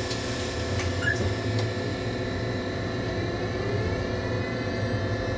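Steady electrical hum and fan noise in the cab of an electric train standing still, with a few faint clicks about a second in and a faint rising whine from about halfway through.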